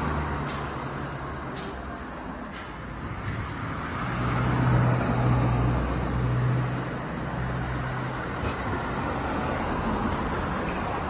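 Road traffic: car engines running as vehicles drive past along a street, loudest about four to seven seconds in.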